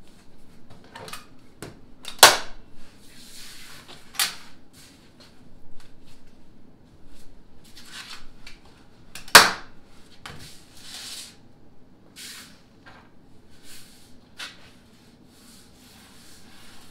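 Cardboard templates rustling and sliding on a plywood sheet with short pencil-scratching strokes while tracing, broken by two sharp knocks about seven seconds apart.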